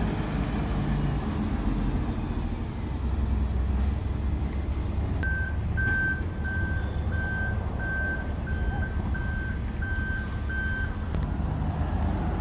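A vehicle's reversing alarm beeping evenly, about twice a second, starting about five seconds in and stopping about six seconds later, over a steady low rumble of vehicle engines.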